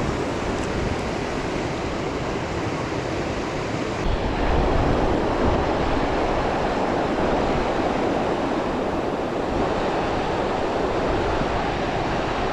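Fast mountain river water rushing steadily, a little louder from about four seconds in.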